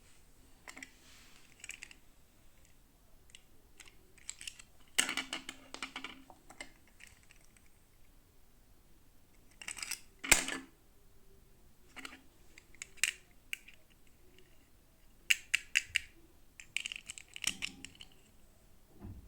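Small plastic toy pieces and packaging being handled: scattered light clicks and taps with short crinkling rustles, one sharp click about ten seconds in, and a run of quick clicks near the end.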